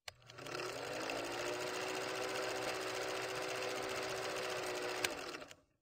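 Film projector running: a fast, steady mechanical clatter with a hum that rises as it comes up to speed in the first second. There is a single click about five seconds in, and the sound cuts off shortly before the end.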